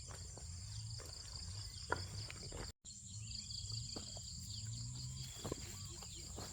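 Crickets and other insects chirring, a steady high pulsing trill with a second, higher steady tone over it, with a few faint knocks and rustles; the sound drops out for an instant just under three seconds in.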